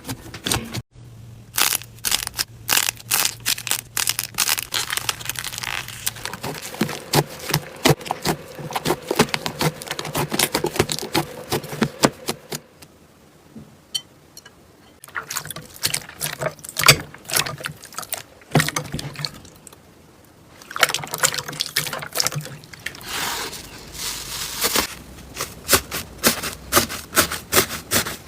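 Slime being squeezed and pressed by hand, making a dense run of wet clicks and pops, with two short pauses.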